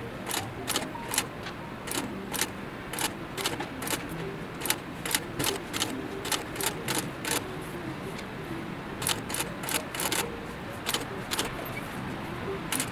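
Cylinder-arm industrial sewing machine stitching leather slowly: a sharp clack with each stitch, two or three a second at an uneven pace, with a pause of over a second near the middle.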